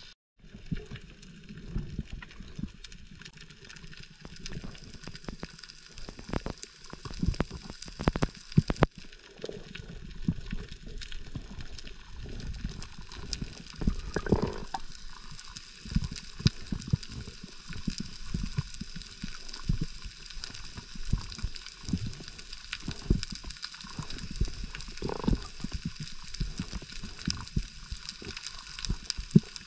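Underwater sound picked up by an action camera: a steady hiss of water with many scattered sharp clicks and low knocks, cutting out briefly at the start and again about nine seconds in.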